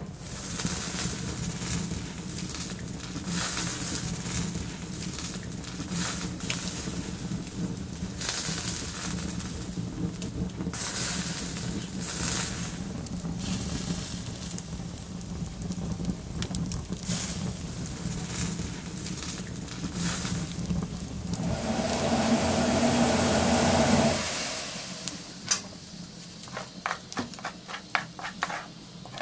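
Chicken satay skewers sizzling over a wood fire, with the burning logs crackling. Near the end a louder hum lasts about two seconds, then quieter, quick ticking follows.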